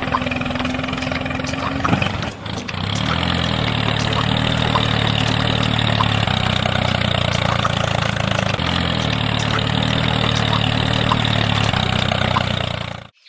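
Small motor running steadily. Its sound dips briefly about two seconds in and picks up again, then cuts off suddenly near the end.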